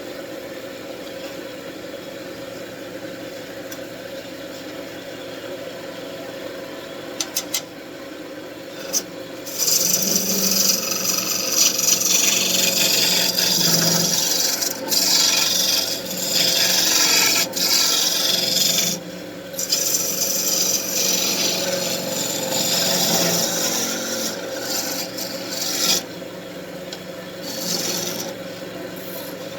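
Wood lathe running with a steady hum. About nine seconds in, a turning tool starts cutting into the spinning wood with a loud hiss, in long passes with short breaks, until near the end.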